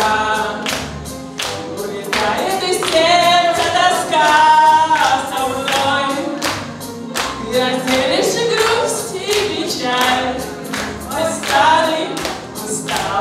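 A woman singing through a microphone in a jazzy song, over a steady beat of percussion strokes from a cajon, with keyboard accompaniment.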